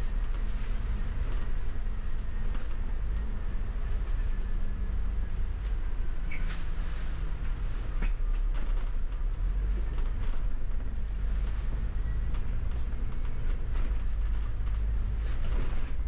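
Double-decker bus engine and road noise heard from inside the upper deck: a steady low rumble with a faint whine, and a single sharp click about halfway through.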